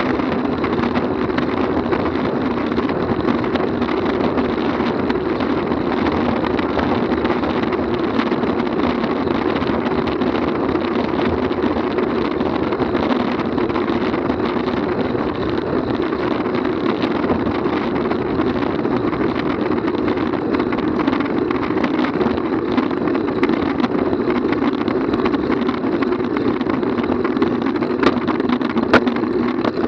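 Steady rush of wind and tyre noise from a road bicycle at speed, picked up by a camera mounted on the bike. A couple of sharp clicks near the end.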